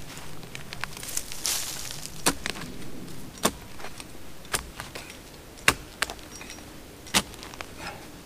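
A hand tool digging into hard clay ground: a scrape, then about six sharp strikes roughly a second apart as it chops into the packed clay.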